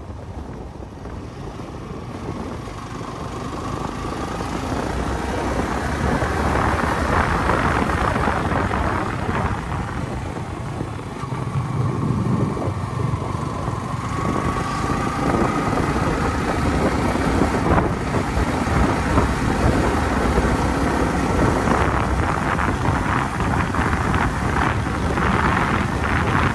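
Motorcycle riding on the road: the engine runs under way, mixed with wind rushing over the microphone, with its pitch rising and easing now and then. The sound grows louder over the first several seconds.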